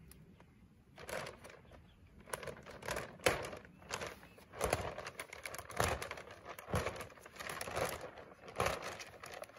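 Plastic packaging crinkling and rustling in irregular bursts, starting about a second in, as electric poultry netting is pulled out of its plastic bag.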